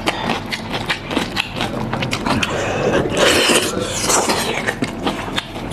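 Close-up eating sounds of a man biting into a hot lamb's head: rapid wet clicks of chewing and lip smacking, with a breathy hiss from about three seconds in.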